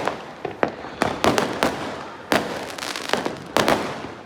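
Firecrackers going off one after another: a rapid, irregular string of sharp bangs, each trailing off in a short echoing tail.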